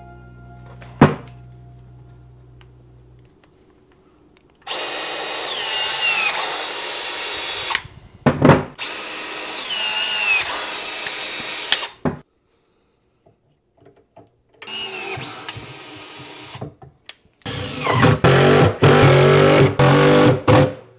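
Power drill running in several bursts of a few seconds each, its motor pitch dropping off as the trigger is released; the last burst is choppier. A single sharp click sounds about a second in.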